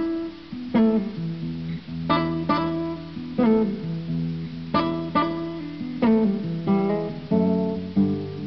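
Background music: acoustic guitar strumming chords, each chord ringing out and fading before the next.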